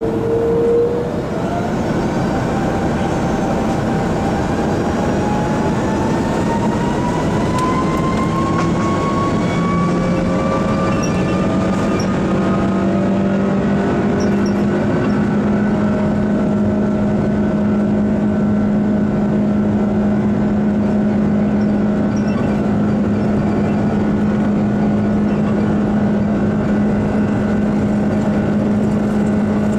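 Airbus A330-300's Rolls-Royce Trent 700 turbofan engines heard from inside the cabin while the airliner taxis onto the runway. The engine whine rises in pitch over the first dozen seconds, then holds steady over a steady low hum.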